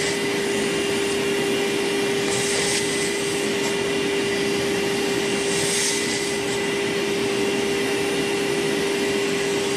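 Vacuum cleaner running with a steady hum, its hose nozzle sucking nest debris out of the open upper gear housing of a MerCruiser sterndrive. The hiss of the suction swells briefly twice as the nozzle moves.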